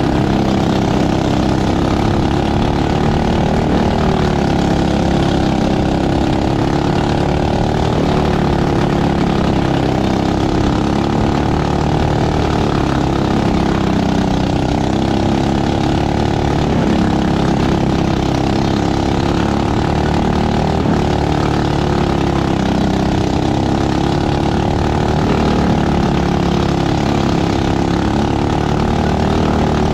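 Superstock racing kart's engine heard from on board at race pace, its pitch climbing along each straight and dipping into each turn, over and over.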